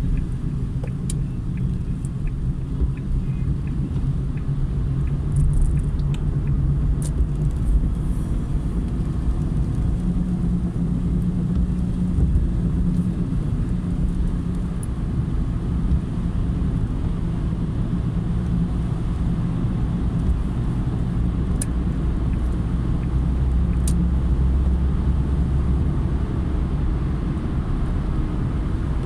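A car driving at road speed: a steady low rumble of engine and tyre noise, with a few faint ticks.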